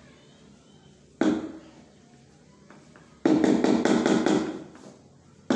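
A hand tool tapping on a glossy floor tile laid in adhesive, knocking it down to sit level with its neighbours: one knock about a second in, a quick run of taps from about three seconds in, and another knock at the very end.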